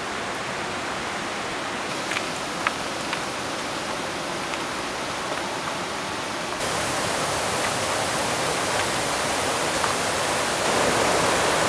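Steady sound of a mountain stream running over rocks, stepping up slightly in level about two-thirds of the way through, with a few faint clicks about two seconds in.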